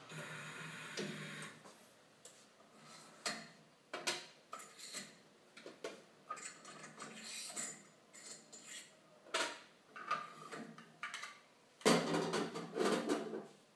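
Plastic film-reel holders of a PH-999SN cup-sealing machine being handled and taken apart: scattered clicks and knocks, with a quick cluster of louder knocks near the end.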